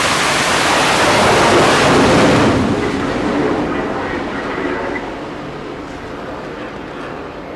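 Twin jet engines of an F/A-18 Super Hornet at full power during a catapult launch: a loud, even rushing noise. About two and a half seconds in it cuts off abruptly and gives way to a quieter jet-engine whine that fades away.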